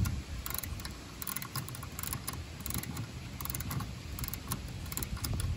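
Ratcheting service-valve wrench clicking as it is cranked round to open the liquid-line service valve on a Bosch heat pump: a run of light, irregular clicks over a low rumble.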